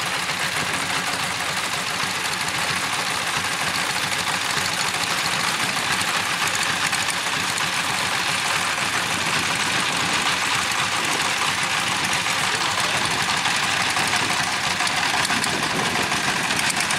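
Two-wheel walking tractor's single-cylinder diesel engine running steadily, with a rapid, even firing beat.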